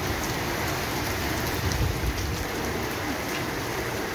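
Heavy rain falling steadily on a concrete courtyard: an even rushing hiss with scattered sharp ticks of drops striking close by.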